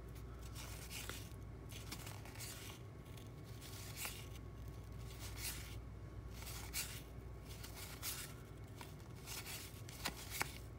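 Cardboard trading cards being flipped through by hand, each card sliding off the front of the stack against the next with a soft papery swish, about one every second.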